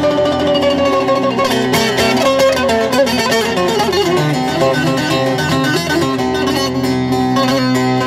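Amplified electric bağlama (long-necked Turkish saz) playing a busy instrumental folk passage over steady held low notes.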